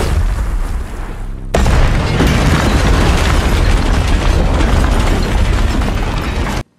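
Drama sound effect of a nuclear blast wave: a dense, continuous rumble with heavy bass, swelling suddenly louder about a second and a half in and cutting off abruptly near the end.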